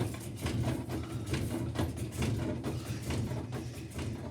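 Washing machine spinning with a load of rocks piled to one side: a steady low motor hum with the rocks knocking inside the drum about twice a second, the sound of a badly unbalanced load.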